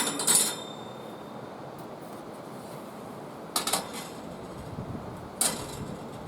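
Metal camp table parts clinking and clanking as they are handled, in three groups: two quick hits at the start, another about three and a half seconds in, and one more near the end, each with a brief ringing.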